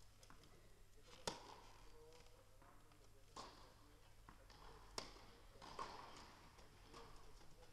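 Sharp knocks of tennis ball impacts echoing in a large indoor tennis hall, the two loudest about four seconds apart, with a few fainter ones between and after. Faint distant voices underneath.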